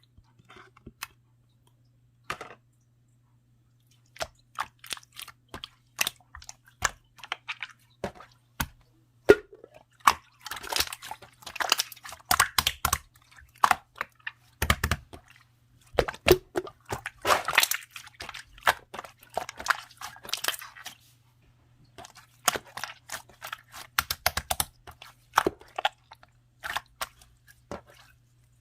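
Clear slime being squeezed, stretched and folded by hand, making irregular sticky clicks, pops and crackles that come thicker and faster from about a third of the way in.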